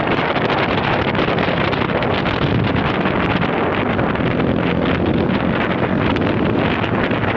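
Wind buffeting the microphone of a moving vehicle, over a steady low engine and road hum.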